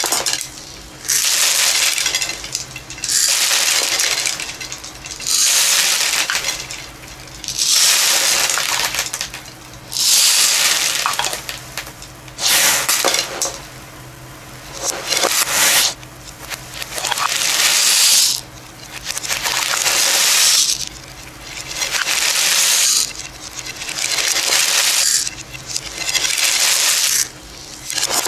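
Repeated cascades of many small hard beads pouring and clattering together. There are about a dozen rushes, each lasting one to two seconds, separated by short quieter gaps.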